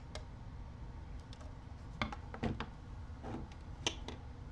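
A few light clicks and knocks from small parts or tools being handled on a workbench, the sharpest about two seconds in and another near the end, over a low steady hum.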